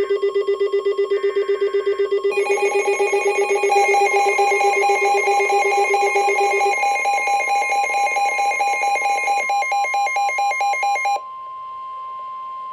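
Electronic emergency-alert attention tone: several stacked pitches pulsing rapidly, with more tones joining about two seconds in. The chord cuts off near the end, leaving one steady high tone that signals the spoken warning is about to begin.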